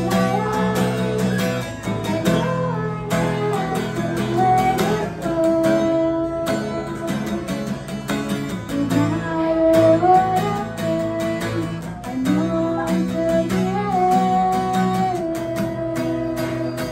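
An acoustic guitar strummed in chords, accompanying a woman singing a slow song into a microphone with held, gliding notes.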